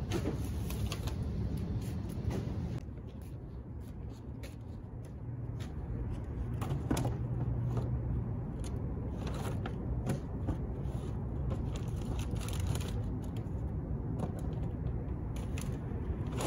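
Trash bags and recycling being put into a dumpster and wheeled bins: scattered rustles, knocks and clicks over a steady low outdoor rumble.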